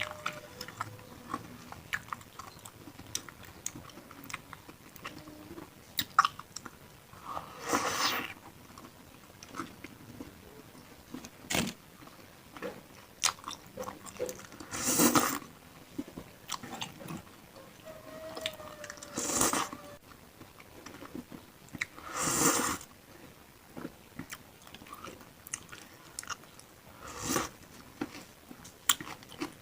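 Close-miked eating sounds of bakso with beef tendon: steady chewing and small wet mouth clicks, broken by five short, louder sounds of about half a second each.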